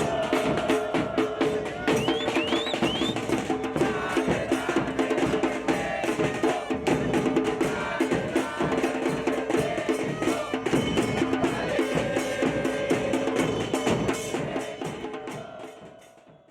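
Music with steady drumming and percussion over sustained pitched notes, fading out near the end.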